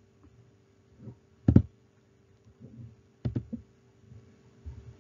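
A few sharp clicks in a small room, the loudest about one and a half seconds in and two close together a little past three seconds, over a faint steady electrical hum.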